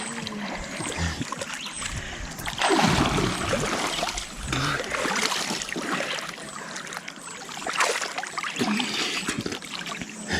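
River water splashing and sloshing around a swimmer in deep water beside a bamboo raft, in irregular surges, loudest about three seconds in.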